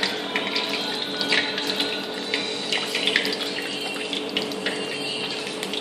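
Battered chicken wings deep-frying in hot oil in a wok: a steady sizzle with scattered crackles and pops.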